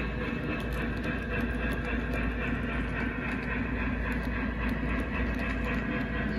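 Model train freight cars rolling past on the track: a steady rumble of small wheels on the rails, with scattered light clicks.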